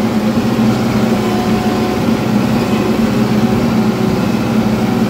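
Compact loader tractor's engine running steadily under way, heard from the driver's seat.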